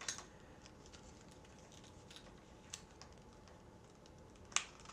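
Faint handling noises from a riveted leather shoulder piece being checked over: a few light clicks and taps, the sharpest one near the end.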